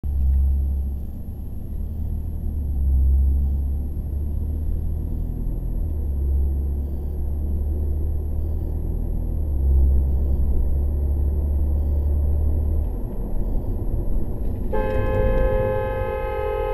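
Steady low road and engine rumble inside a moving car's cabin. About fifteen seconds in, a car horn sounds and is held as a long, steady warning honk at a lorry pulling out in front.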